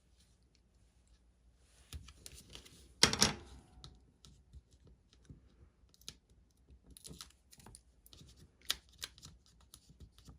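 Double-sided Tear & Tape adhesive being pulled from its roll and torn into small strips, with one short louder rip about three seconds in, followed by light clicks and paper rustling as the strips are pressed onto card stock.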